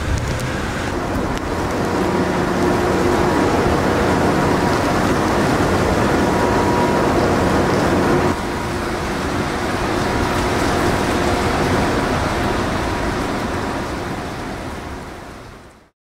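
Hurricane wind and heavy driving rain, a steady dense noise. About eight seconds in it cuts abruptly to a somewhat quieter wind-and-rain noise, which fades out near the end.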